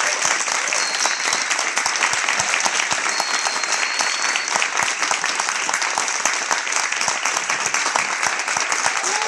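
Large audience applauding steadily, a dense run of many hands clapping.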